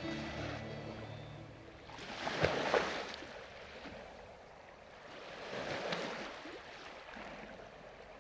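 Sea water washing along the hull of a motor yacht at sea. It surges up and falls away twice, about three and a half seconds apart.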